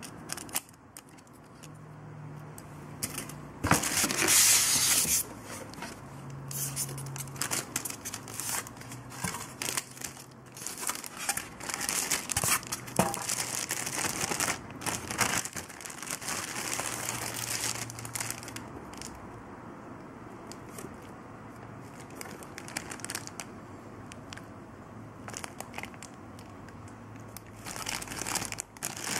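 Clear plastic bag crinkling and rustling as a DVD drive is handled and unwrapped from it, in irregular bursts, the loudest about four seconds in and a long stretch of dense crinkling in the middle.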